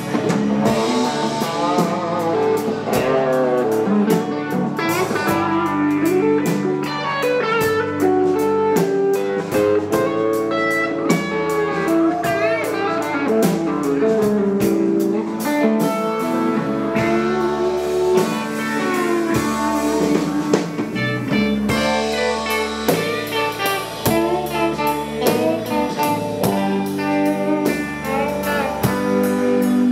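Blues music led by guitar, with a drum kit keeping a steady beat.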